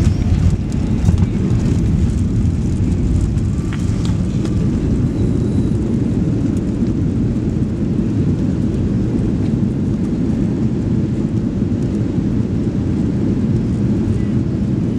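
Steady low roar heard inside the cabin of a Boeing 737 Next Generation airliner as it lands and rolls out along the runway, a little louder about a second in.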